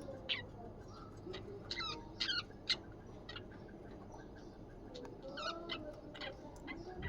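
Budgies chirping and chattering in short, scattered calls, with a quick cluster about two seconds in and more around five to six seconds in.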